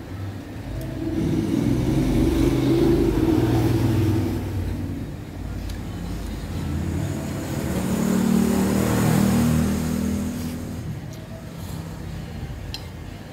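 Two motor vehicles driving past close by one after the other, each engine sound swelling up and fading away, the second passing about eight seconds in.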